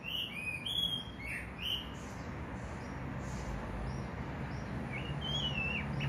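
Oriental magpie-robin giving short chirping calls, a few in the first two seconds and a quick run of rising-and-falling notes near the end, over a faint low hum.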